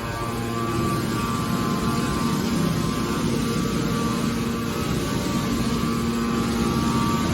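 Hydraulic scrap metal baler running: a steady machine hum with a low rumble and a pump whine. The whine weakens for a few seconds in the middle and comes back near the end.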